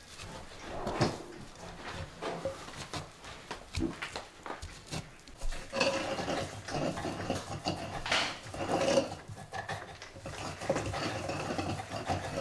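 Wooden pestles grinding boiled mugwort in ceramic suribachi mortars, with irregular scraping and knocking strokes.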